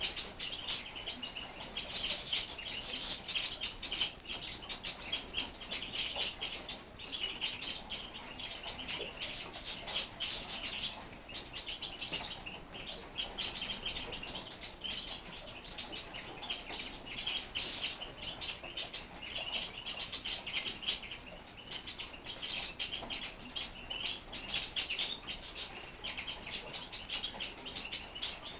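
Caged larks singing: a continuous, rapid twittering song of short high notes, with only brief dips.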